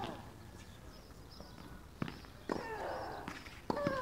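Tennis rally: sharp racket strikes on the ball, a second or two apart. The two strikes near the end each come with a short falling grunt.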